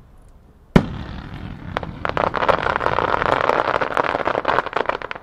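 Fireworks display: one loud bang under a second in, then a dense crackle of many small pops that builds and runs for about three seconds before cutting off suddenly, the sound of a crackling shell's stars going off.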